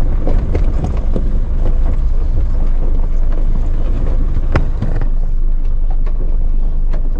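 Off-road SUV's engine running at low speed on a steep rocky trail, with tyres crunching over loose stones and the body knocking, heard from inside the cabin. A sharp knock stands out about four and a half seconds in.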